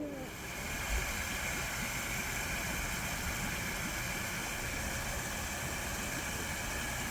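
A passing train: a steady rumble and rush of noise, with faint high tones above it.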